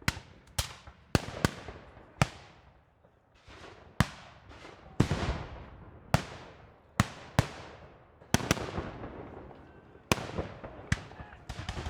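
Distant gunfire in a war zone ambience: about twenty single sharp shots at irregular spacing, some in quick pairs, each echoing away in a long fading tail.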